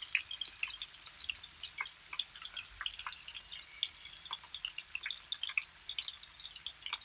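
Pork belly frying in hot oil in a nonstick pan: the oil sizzles with many small, irregular pops and crackles.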